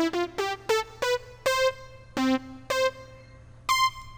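A synthesizer plays a run of short separate notes, mostly stepping up in pitch, with a quick glide (portamento) carrying each note into the next.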